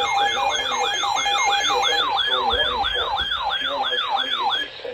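Electronic emergency alert tone sweeping up and down about two and a half times a second, like a siren, then cutting off just before the end; the alert that leads into a severe thunderstorm warning broadcast.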